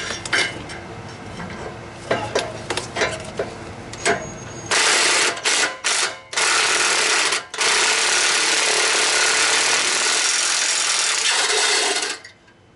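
Ryobi half-inch cordless impact wrench hammering on exhaust flange bolts seized by heat cycles, after some clicks and knocks of metal handling. It starts about five seconds in with a few short bursts, then runs steadily for about five seconds and stops.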